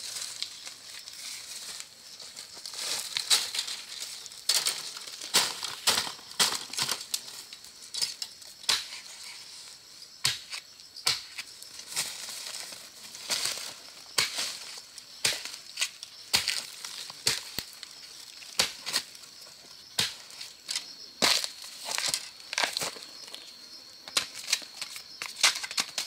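Dry plant matter, such as bamboo leaves and husks, crunching and snapping in irregular sharp cracks, about one or two a second.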